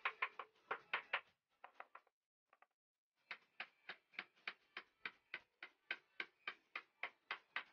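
Hammer driving nails into a wooden board: a quick flurry of strikes, a short pause, then a steady run of even blows, about three a second.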